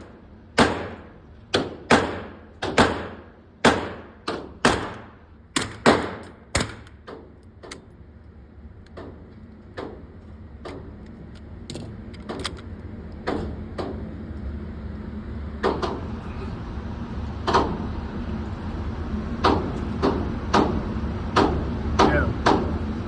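A 9mm pistol-caliber carbine fired semi-automatically in a quick string of about a dozen sharp, echoing shots over the first seven seconds. After that come fainter, more widely spaced shots over a steady low hum.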